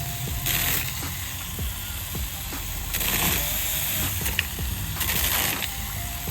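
Short bursts of hissing, several in a row a second or two apart, each under a second long, over a steady low background.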